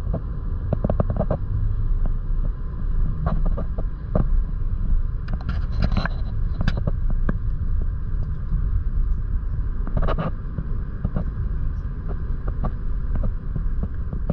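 Road noise inside a moving vehicle's cabin: a steady low rumble of tyres and engine with a faint hiss, broken by scattered short clicks and ticks.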